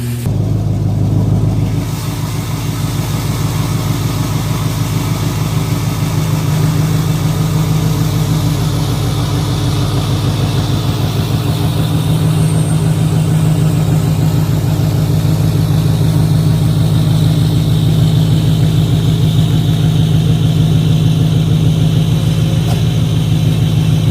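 Chevrolet Silverado pickup's engine idling steadily, with an even low rumble.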